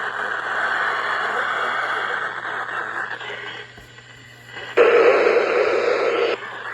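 Weather-radio reception noise: a stretch of hiss that fades out about three seconds in, then a louder burst of static lasting about a second and a half that cuts off suddenly, over a steady low hum.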